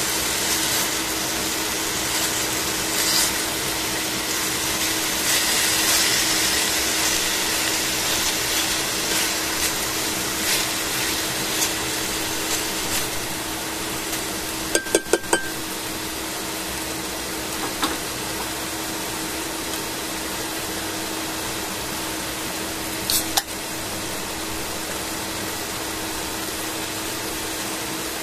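Chicken pieces sizzling in a stainless steel frying pan with a steady hiss that eases a little about halfway through, over a steady low hum. Tongs click sharply against the pan in a quick run of four about halfway through, and twice more later.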